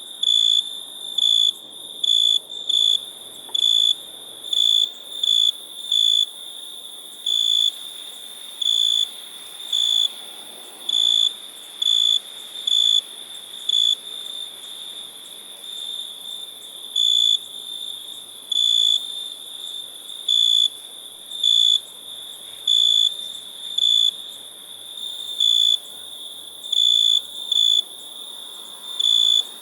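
Cricket chirping: short, loud chirps about once a second at uneven spacing, over a steady high-pitched background trill.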